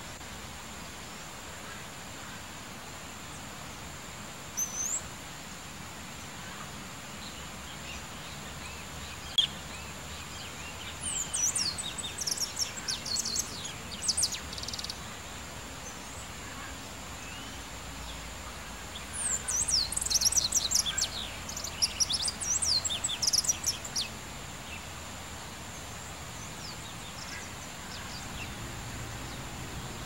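A small songbird singing in two bursts of rapid, high chirping notes, one about a third of the way in and a longer one about two thirds in, over steady outdoor background noise.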